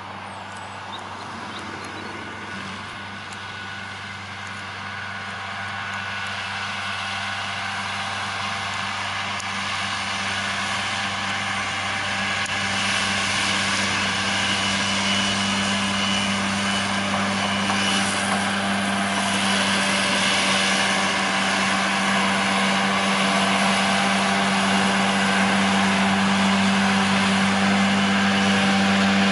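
John Deere 6145R tractor's six-cylinder diesel engine running steadily under load while its rear-mounted Kuhn FC 284 D disc mower conditioner spins and cuts grass. A steady engine hum sits under a hissing whir, and the whole sound grows steadily louder as the tractor approaches.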